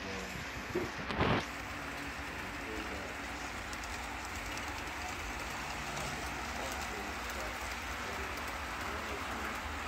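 HO-scale Rapido Dash 8-40CM model diesel locomotive running along the layout track, a steady hiss of wheels and motor, with a brief clatter about a second in.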